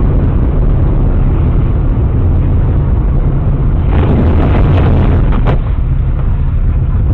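Loud, low road and engine noise inside a moving car as picked up by a dashcam's microphone, with a short run of sharp knocks a little past halfway.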